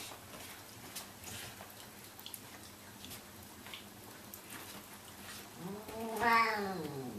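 Siamese cat giving one long, low warning yowl that rises and then falls in pitch, late in the stretch, hostile to the Labrador puppy beside it. Before it, faint light clicks and scuffles of the puppy moving on the leather sofa.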